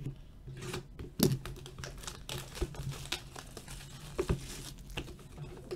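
Plastic shrink wrap crinkling as it is slit with a knife and peeled off a sealed box of hockey cards, with two sharp knocks, about a second in and past four seconds in.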